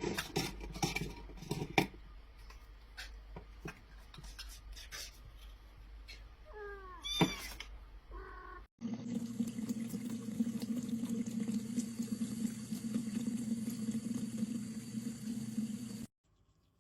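A cat meows briefly a few times among scattered clicks and knocks. Then a steady rushing noise with a low hum starts suddenly and cuts off just as suddenly near the end.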